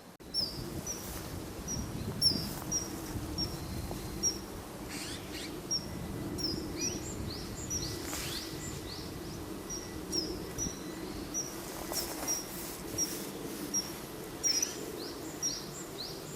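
Male common kingfisher calling from a perch: a long series of short, high, piping notes, about two a second. The uploader takes these for calls to a female.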